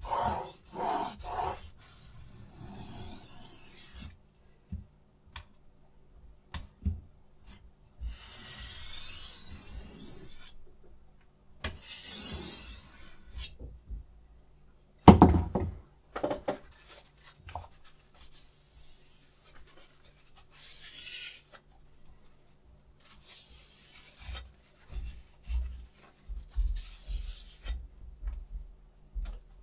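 Steel knife edge scraped across a diamond sharpening plate: quick rasping strokes at first, then separate longer scraping sweeps, with one loud knock about halfway through and small clicks of the sharpener being handled.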